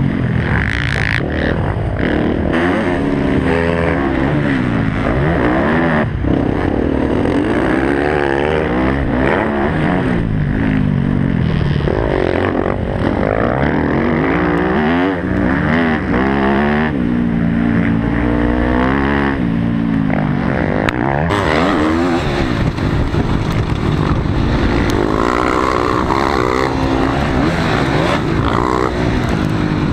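Motocross dirt bike engine revving up and down repeatedly as the rider works the throttle through corners and straights, heard loud from a camera mounted on the bike.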